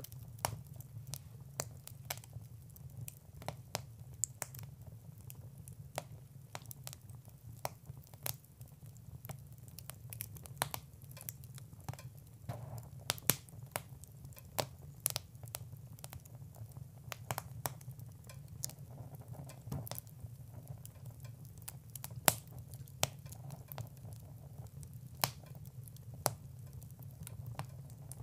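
Wood fire crackling, with irregular sharp pops and snaps, a few of them louder, over a steady low hum.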